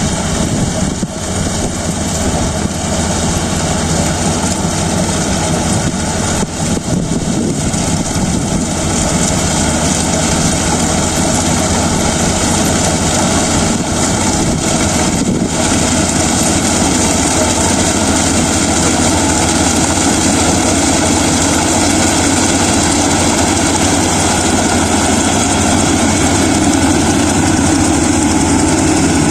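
Kubota DC-35 rice combine harvester's diesel engine running steadily with its machinery, a continuous loud drone.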